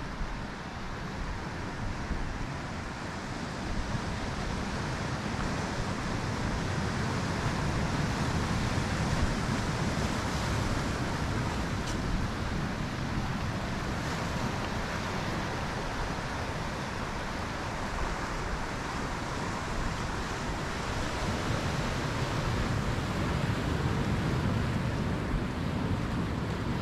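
Ocean surf breaking and washing over a rocky shore: a steady rushing wash that swells louder about a third of the way in and again near the end.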